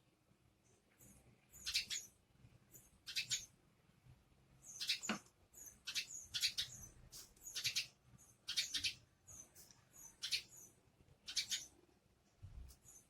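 Sparrows chirping: short, high-pitched chirps repeated about once a second.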